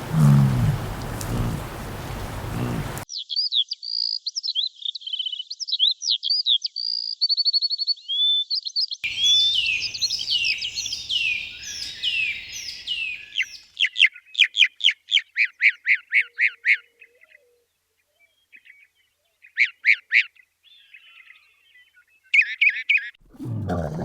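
Small birds chirping and singing, in a run of short pieces: varied high chirps, then a fast series of repeated notes at about four a second, then scattered chirps. A low-pitched animal call is heard for the first few seconds, and another begins near the end.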